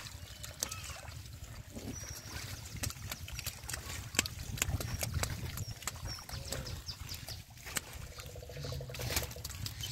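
Hands splashing and sloshing in shallow muddy water. About four seconds in comes a run of sharp wet slaps and smacks as a fish is lifted out of the water.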